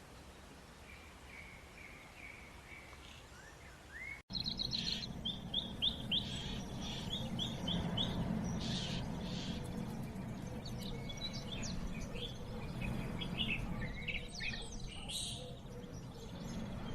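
Small birds chirping, faint at first. About four seconds in, an abrupt cut brings a louder stretch of many quick, high chirps over a low steady background noise.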